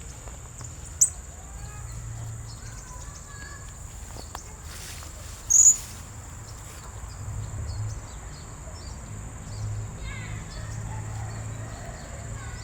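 Blue-crowned hanging parrot (serindit) giving two sharp, high-pitched chirps, one about a second in and one near the middle, over a steady shrill insect-like drone, with faint twittering in between.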